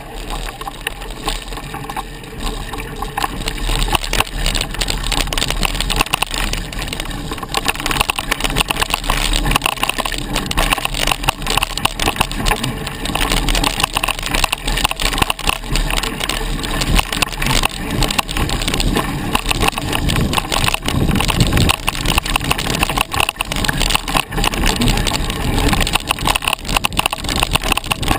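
Mountain bike ridden fast along a dirt trail: tyres crunching over dirt and roots, with a constant rattle and clatter of the bike over the bumps and a low wind rumble on the microphone.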